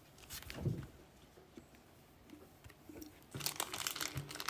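Faint crinkling and rustling of a soft plastic card sleeve as a trading card is slid into it and handled. There are a few light clicks early, then denser crinkling from about three seconds in.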